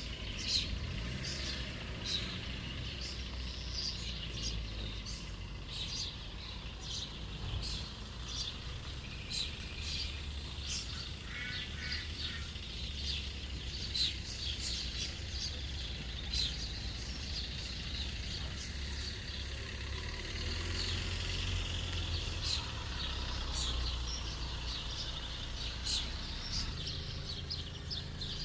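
Small songbirds chirping and singing: many short, high calls throughout, over a steady low rumble.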